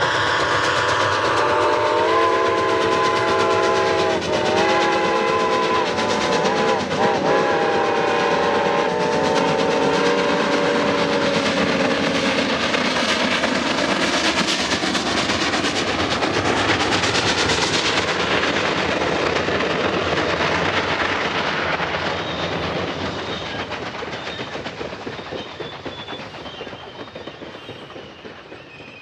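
A steam locomotive's whistle blowing a chord of several notes over the first ten seconds or so, bent in pitch a few times, followed by the steam-hauled passenger train passing with its exhaust and wheels clicking over the rail joints, loudest midway, then fading away near the end.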